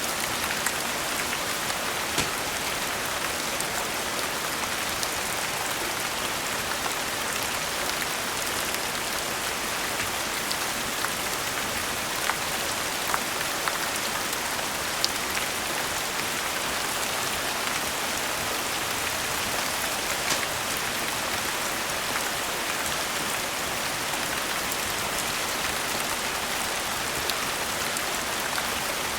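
Steady rain falling on a surface, an even hiss with no let-up, with a sharp click or pop every few seconds over it.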